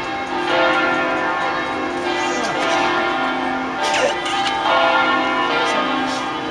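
The bells of the Basilica of Sant'Anastasia ringing a concert in the Veronese system, with overlapping strikes and long ringing tones.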